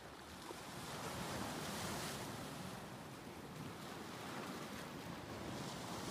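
Small wind-driven waves lapping and splashing at the shore, with wind; the wash swells louder about two seconds in and again near the end.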